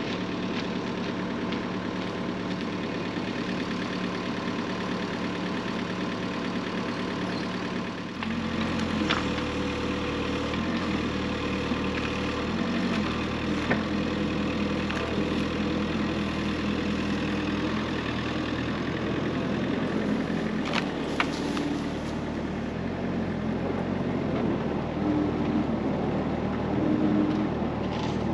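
Cat mini excavator's diesel engine running steadily; about eight seconds in its note shifts as the hydraulic arm and grab go to work on a pile of logs. A few sharp knocks stand out over the engine.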